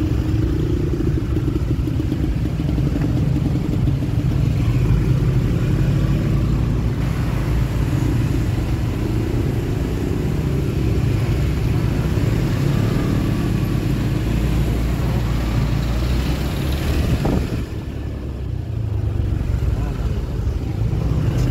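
Motorcycle engine running in slow stop-and-go traffic, under a heavy, steady low rumble of road and wind noise on the rider's camera.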